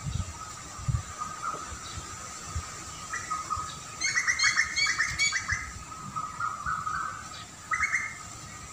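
Songbird chirping: a quick run of short chirps about four seconds in and a shorter run near the end, over a steady faint high-pitched drone.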